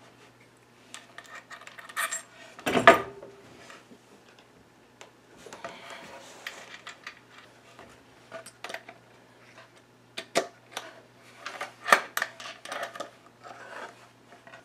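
Small metal hardware clinking and clicking as a nut and washer go onto a lamp socket's threaded stem through a wooden board, with the board knocked and handled. Scattered sharp clicks throughout, and a louder clatter about three seconds in.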